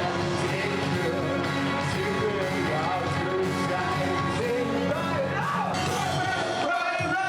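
Rock music with a singing voice over a full band, at a steady level.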